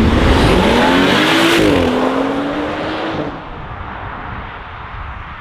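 BMW 4 Series petrol engine accelerating hard from a roundabout, its pitch rising, dipping once about two seconds in and climbing again. Just after three seconds the loud engine sound stops abruptly, leaving quieter distant traffic.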